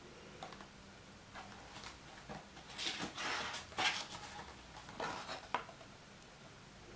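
Faint rustling and a few light taps of a picture book being handled as its pages are turned.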